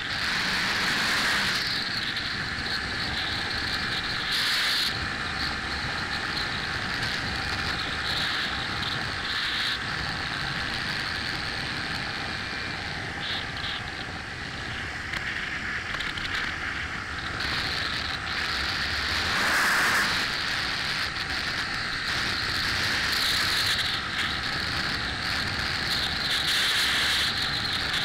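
Motorcycle riding at a steady cruising speed: wind rushing over the microphone with engine and tyre noise underneath, swelling briefly a few times.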